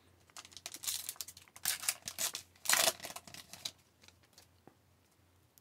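Trading-card pack wrapper crinkling and tearing and cards being handled, a run of short rustles over the first few seconds that then stop.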